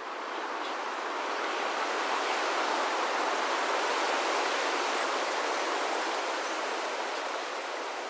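A steady, even rushing noise with no distinct events, swelling slightly in the middle and easing a little near the end.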